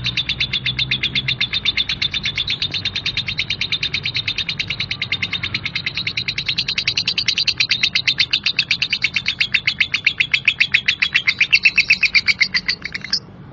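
Lovebird's long 'ngekek' song: a fast, harsh chattering trill of short notes, about ten a second, held on and on, then cut off abruptly near the end.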